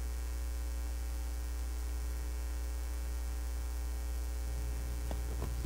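Steady low electrical mains hum with a faint hiss under it, with a couple of faint ticks near the end.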